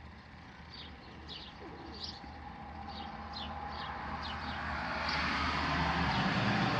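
A bird chirping repeatedly: short, high, falling chirps about once every half second to a second. Under it is a steady low hum, and a broad rushing noise grows louder through the second half.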